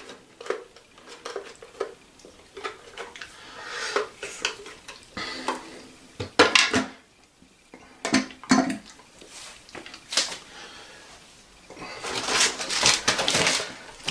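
Hard plastic toilet fill-valve parts clicking and knocking as they are handled, with a stretch of rustling near the end.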